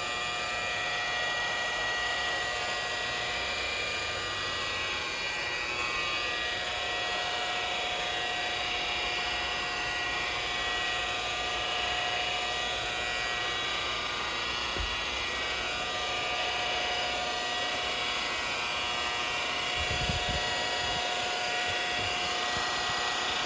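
Milwaukee M18 Fuel 7-inch cordless rotary polisher running steadily with a foam pad on vinyl isinglass, a constant motor whine that holds one pitch. A brief low bump about twenty seconds in.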